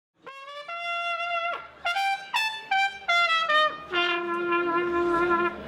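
Music led by a trumpet playing a melody of short notes, then a longer held note, over a quiet lower accompaniment.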